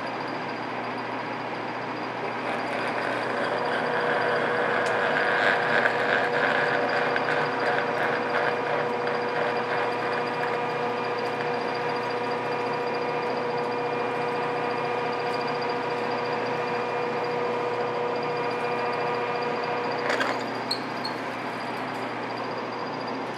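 Metal lathe running with a large twist drill fed from the tailstock into a workpiece in a four-jaw chuck: a steady motor and gear hum with a whine. The sound grows louder with cutting noise for several seconds as the drill bites. About twenty seconds in there is a click and the whine drops out.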